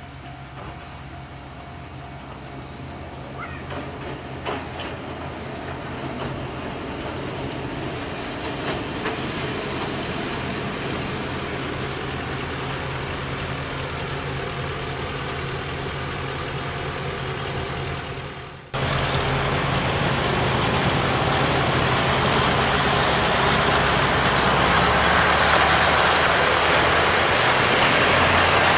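Kominato Railway KiHa 200-series diesel railcar, its engine running steadily as it nears and passes at close range, growing louder. About two-thirds of the way through the sound briefly drops, then comes back louder and noisier as the railcar runs by.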